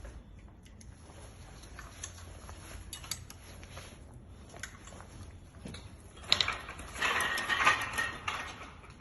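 Metal hand tools and brake parts clicking and clinking during a front brake pad change, with a loud metallic rattle starting about six seconds in and lasting about two seconds.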